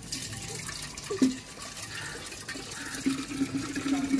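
Water running from a tap into a small terracotta clay pot, with a brief knock about a second in and a steady tone joining about three seconds in.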